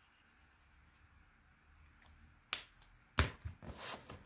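Acrylic paint markers being handled: after a near-silent first half, two sharp plastic clicks less than a second apart, then light rattling of markers being put back and taken from their box.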